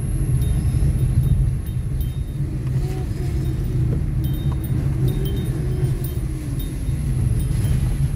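Road vehicle on the move: a steady low rumble of engine and road noise.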